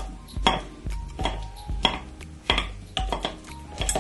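A hand masher pounding ripe bananas in a mixing bowl: about six knocks, each a low thud with a clink against the bowl, coming roughly every two-thirds of a second.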